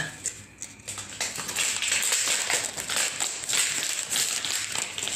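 Plastic packaging rustling and crinkling as it is handled close to the microphone, with light taps, irregular, starting about a second and a half in.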